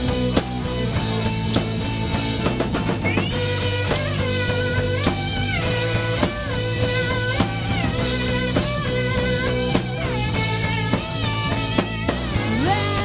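Rock band playing live: an electric guitar plays a lead line with bending, gliding notes over bass guitar and a drum kit keeping a steady beat.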